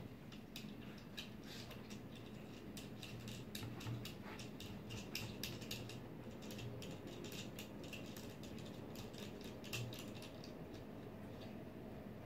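Faint, quick clicks and rustling from fingers handling thin wires and cable sleeving at a 3D printer's extruder. The clicks come thickest in the middle and thin out near the end.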